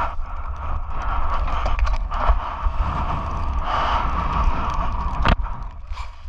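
Gale-force wind buffeting the microphone, a steady rumble with a rushing hiss that swells and fades, mixed with rubbing and knocks from an inflatable dinghy being handled on deck; one sharp knock about five seconds in.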